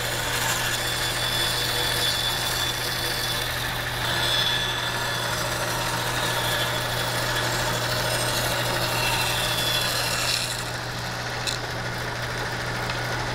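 Bandsaw running with a steady motor hum while its blade cuts slices from a banksia pod, giving a dense hiss over the hum. The cutting eases off about ten seconds in while the motor keeps running.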